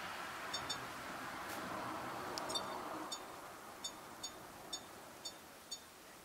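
Sony HDR-AS30V action camera giving short, high electronic beeps, about ten in all, one with each button press as its menu is stepped through, with a few faint button clicks.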